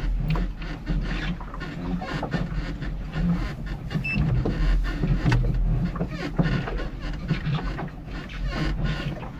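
Electric boat motor running on its own under the new EZKontrol controller's self-learning routine, with a low rumble and irregular knocks. A short beep sounds about four seconds in.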